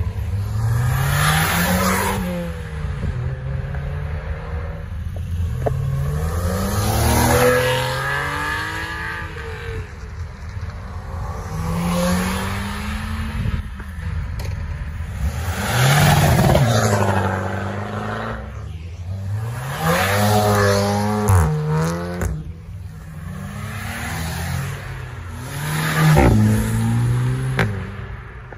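Several performance cars accelerating hard away one after another, each engine revving up through the gears with a drop in pitch at every shift. There are a couple of sharp cracks in the second half.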